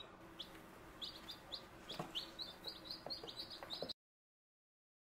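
Freshly hatched baby chicks peeping: many short, high peeps overlapping, growing busier about a second in, then cutting off suddenly near the end.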